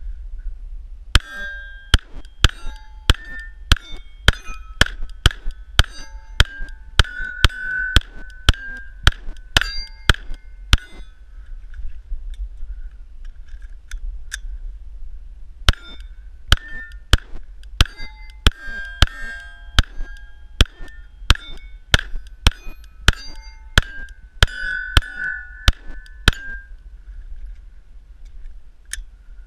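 Rapid 9mm pistol fire at steel targets: two strings of about fifteen shots each, with a pause of several seconds between them, and each hit answered by the clear ring of the struck steel plate.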